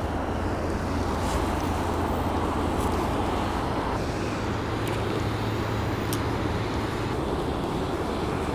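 Steady rush of a heavy flow of water pouring out of a spillway outlet into the creek, with wind on the microphone and a few faint ticks.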